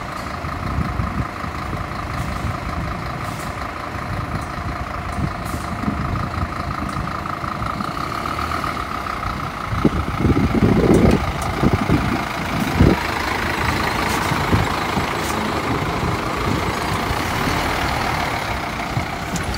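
Scania fire truck's diesel engine running as the truck pulls slowly out of the station and onto the road, with several loud low rumbles about halfway.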